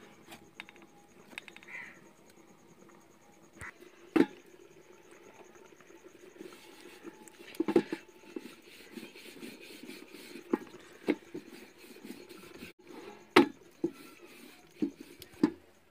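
Wooden rolling pin rolling wheat-flour dough out on a steel plate, with irregular sharp knocks as the pin strikes the metal plate, about eight in all.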